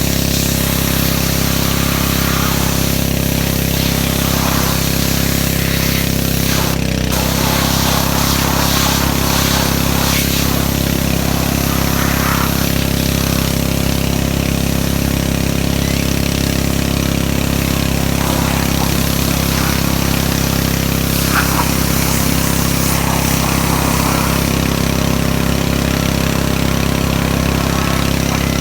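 Pressure washer running steadily, its engine humming under the hiss of the spray, with a short break in the hiss about seven seconds in.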